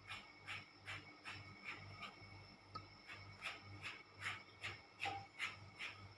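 Kerokan skin-scraping: a bottle cap drawn over skin in short, regular strokes, about two or three a second.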